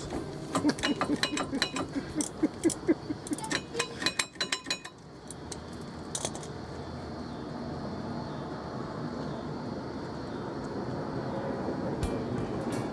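Metal brake parts and tools clinking and clattering as a brake caliper is worked loose, a quick run of sharp metallic clicks that stops about five seconds in. A steady background hiss follows.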